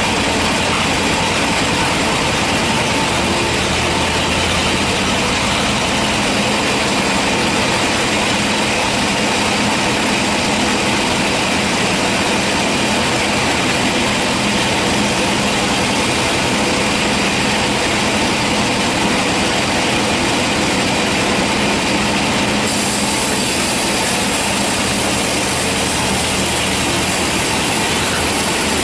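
Band sawmill running steadily, its saw blade and drive making a continuous loud mechanical noise as it saws through a hard teak log.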